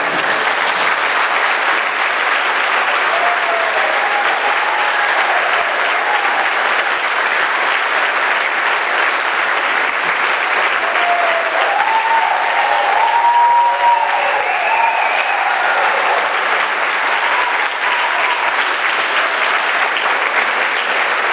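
Audience applauding steadily and loudly, with shouts and whoops rising over the clapping a few seconds in and again midway.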